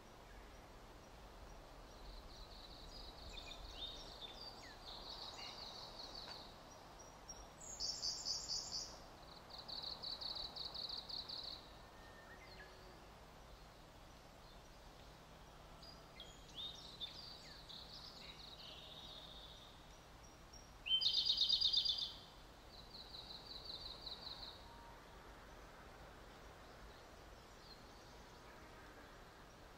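Songbirds singing: a string of short, high trilled phrases, some quick and rattling, the loudest about two-thirds of the way through, over a faint steady hiss.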